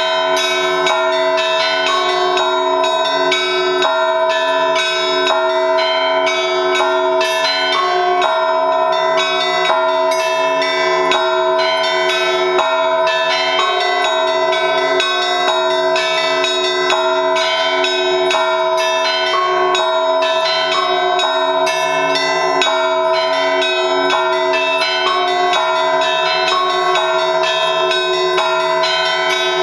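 Russian Orthodox church bells rung as a fast ensemble trezvon in three-four time. Small bells chime rapidly and continuously over the lingering tones of the larger bells.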